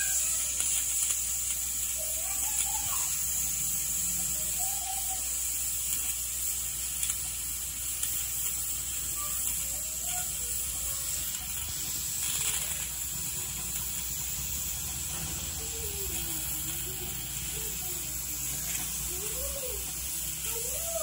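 Prestige Svachh pressure cooker on a gas burner, boiling under pressure with a steady high hiss. Faint short wavering calls sound over it now and then, more often near the end.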